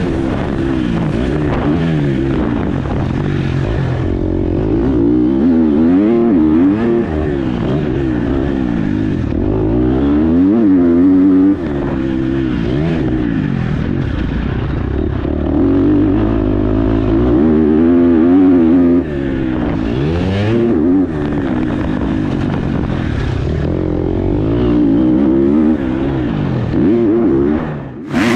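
KTM dirt bike engine revving up and down over and over as the bike is ridden around a motocross track, its pitch rising and falling with throttle and gear changes, heard from the rider's helmet.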